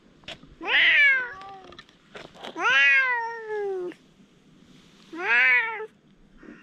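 A cat meowing three times, each call rising and then falling in pitch; the second call is the longest.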